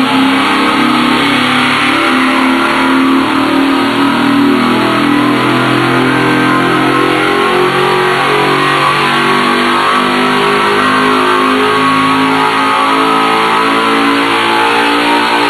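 GM Performance Parts CT525 circle-track crate engine running a wide-open-throttle power pull on an engine dyno. Its note climbs steadily as the revs rise from about 3,800 to about 6,700 rpm, making about 534 horsepower at the top of the pull.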